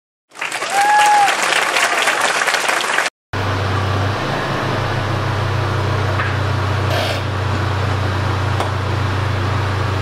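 A burst of crowd cheering and clapping with one short whistle about a second in, cut off after about three seconds. After it comes a steady low hum with a hiss over it.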